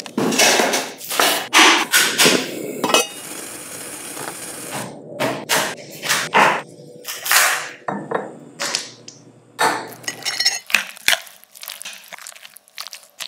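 A cleaver chopping and cracking through a cooked lobster's shell onto a wooden cutting board: a series of sharp knocks and crunches, with a stretch of steady hiss a few seconds in.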